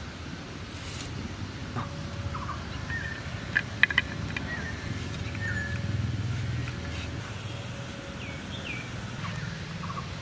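Outdoor rural background with a steady low rumble and a few short bird chirps. About four seconds in, a few sharp clicks as potato is sliced on a boti blade.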